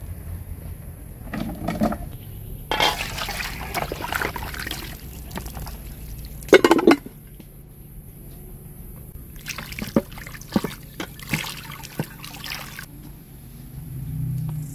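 Water pouring and splashing in a metal bowl as raw chicken pieces are rinsed, in two stretches of a few seconds each, with a short loud sound halfway through.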